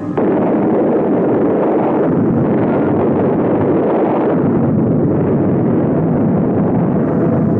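Atomic bomb explosion: a sudden blast about a fifth of a second in, running on as a loud, unbroken rumbling noise.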